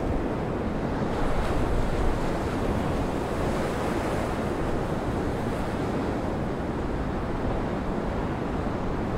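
Heavy storm surf breaking and washing over shore rocks in a gale, a steady roar of sea noise that swells slightly about a second and a half in, with strong wind buffeting the microphone.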